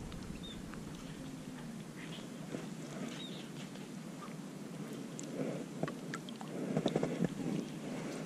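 Quiet swamp-side ambience with a few faint bird chirps; about six and a half seconds in, a burst of rustling and small clicks as branches and fishing gear are handled.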